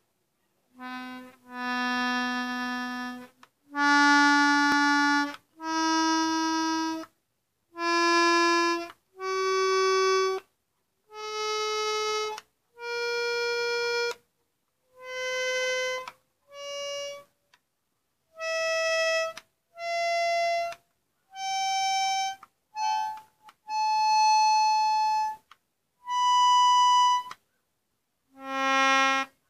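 Hohner Mignon II piano accordion sounding single treble notes one at a time, each held about a second with a short silence between. The notes climb step by step up the keyboard over about two octaves, then drop back to a low note near the end.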